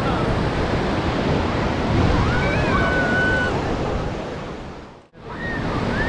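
Ocean surf breaking and washing up a sandy beach, a steady rush of waves, with a distant voice calling out about two seconds in. The sound fades down to almost nothing about five seconds in and then comes straight back.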